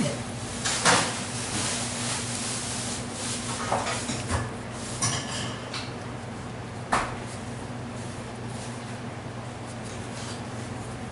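Scattered metal clinks, knocks and rubbing from handling and wiping a scooter brake caliper and its parts, a sharper knock about two-thirds of the way in, over a steady low hum.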